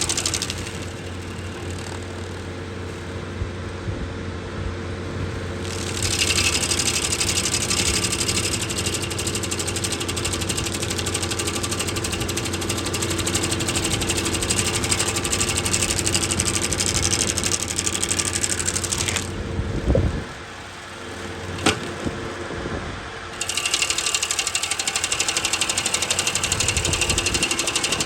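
Skid-steer-mounted stump grinder cutting into a small apple stump: the skid steer's engine runs steadily under load while the cutter wheel chews the wood with a bright, rapid hiss. The cutting noise drops away twice for a few seconds, once just after the start and again about two-thirds through, leaving the engine running, with a single sharp click during the second lull.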